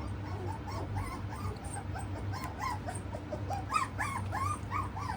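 Australian Shepherd puppies whimpering and yipping: many short, high squeals, several a second, each rising and falling in pitch. They grow louder a little past halfway.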